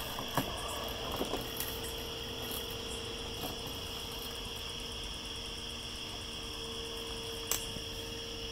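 Crickets chirping steadily over a faint, steady hum, the Husqvarna Automower 315X robotic lawn mower running quietly, with a few faint ticks.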